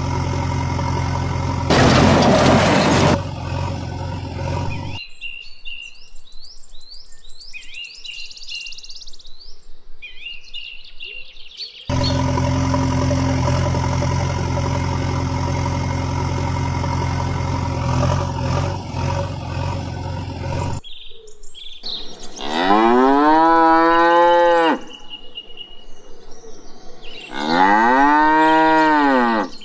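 A steady engine sound runs for the first five seconds, with a brief loud rush of noise about two seconds in. Birds chirp for several seconds, then the engine sound returns. Near the end, cattle moo twice, each a long call that rises and falls.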